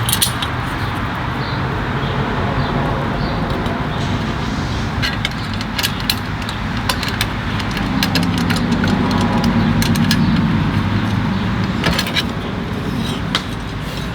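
Light metal clicks and clinks of licence plate bracket hardware being handled and fitted, over a steady low outdoor rumble. A low hum swells briefly a little past the middle.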